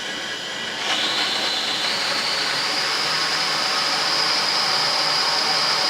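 Litehawk Quattro quadcopter's geared motors and propellers running. About a second in they spool up with the throttle, a high whine rising quickly in pitch and then climbing slowly. The pinion gears have been reset to the right height and the gears oiled, so it runs much quieter.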